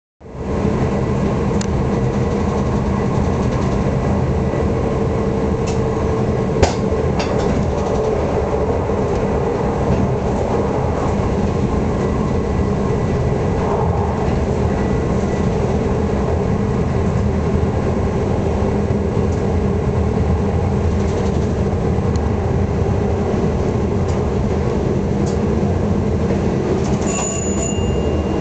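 A train running at speed heard from its front cab: steady wheel-on-rail running noise with a faint steady hum, and a few sharp clicks in the first several seconds as the wheels pass rail joints and points.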